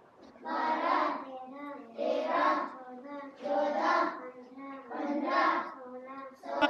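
A class of young schoolchildren chanting a lesson in chorus in a sing-song rhythm, loud group lines about every second and a half alternating with shorter, softer lines.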